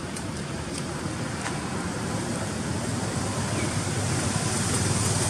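Steady rushing outdoor background noise with a low rumble, slowly growing louder, with a few faint ticks in the first second or so.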